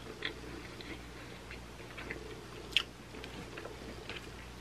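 A person chewing a mouthful of pizza, close to the microphone: soft wet mouth sounds and small clicks, with one sharper click about two-thirds of the way through, over a low steady hum.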